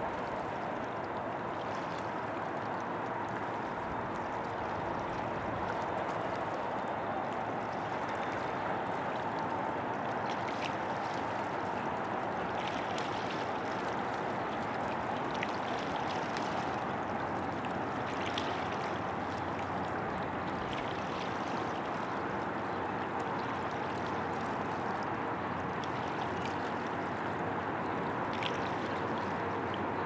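Tennessee River water flowing in a steady, even rush, with faint brief splashes now and then.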